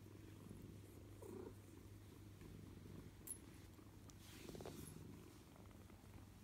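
Ragdoll kitten purring softly and steadily, with a light click about three seconds in.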